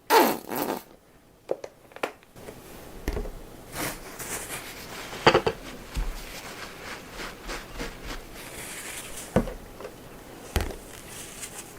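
Scattered knocks, clicks and scrapes of objects being handled, over a steady low hiss.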